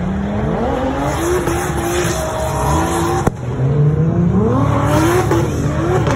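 Drift cars' engines revving up and down with tyre squeal. The sound breaks off abruptly about halfway through, then engines rev louder and closer.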